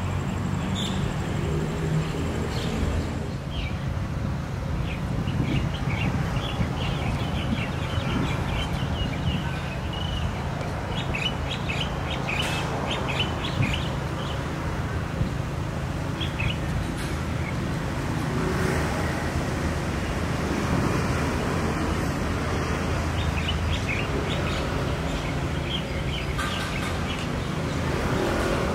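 Small birds chirping in many short calls, over a steady low drone.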